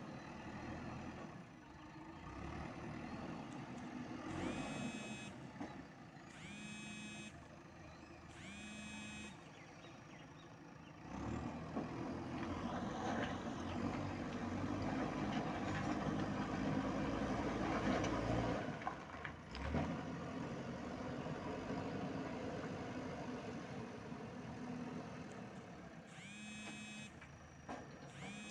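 Diesel engine of a JCB 3DX backhoe loader running, with its reversing alarm beeping three times early on, about two seconds apart, and once more near the end. About a third of the way in the engine grows louder and stays up for several seconds as the machine works, then settles back.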